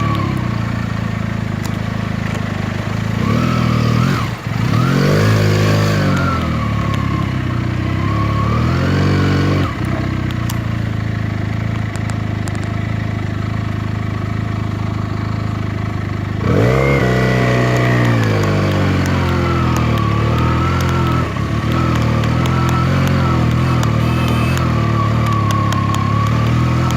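Benelli TNT 300's parallel-twin engine running under way, its pitch rising and falling as the bike accelerates and shifts gears, with brief dips at the gear changes and a sharp rise in engine speed about two-thirds of the way through.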